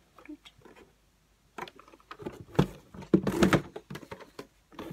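Boxed Funko Pop figures being handled and stacked: cardboard boxes with plastic windows knocking and rubbing together. It begins after a quiet second and a half as a run of clicks and knocks.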